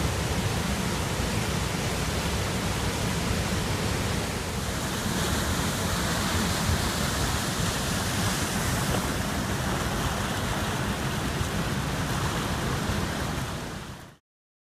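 Flash-flood runoff rushing down sandstone ledges into a slot canyon: a steady, loud rush of fast, churning water. It turns brighter and hissier about four and a half seconds in, then fades and cuts off shortly before the end.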